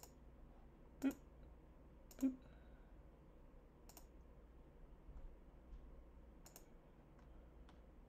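Computer mouse clicking: about five separate clicks at irregular spacing, the two in the first few seconds loudest with a low knock, and a few fainter ticks near the end, over a faint low hum.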